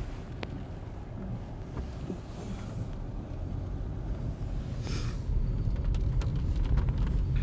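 Car driving, heard from inside the cabin: a steady low rumble of engine and tyres that grows slowly louder, with a few faint clicks and a brief hiss about five seconds in.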